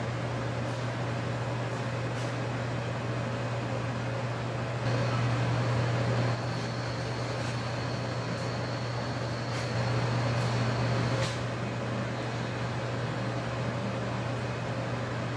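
Steady low mechanical hum of building ventilation machinery. It swells louder twice, about five and ten seconds in, and a faint thin high whine runs through the middle stretch.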